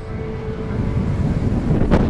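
Wind buffeting the microphone: a heavy, steady low rumble, with one sharp knock near the end.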